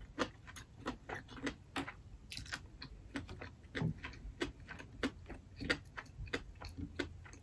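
Close-miked chewing with lip smacks: a quick, irregular string of soft wet clicks, several a second.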